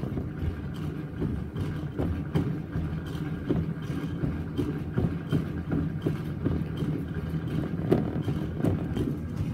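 Indoor exercise bike being pedalled: a steady mechanical hum with frequent small clicks and knocks.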